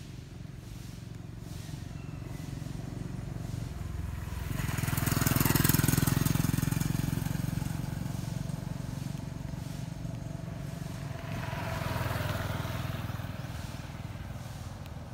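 Motor vehicles passing by, one after another, over a steady low hum. The first swells up and is loudest about five or six seconds in, then fades, and a second, quieter one passes near the twelve-second mark.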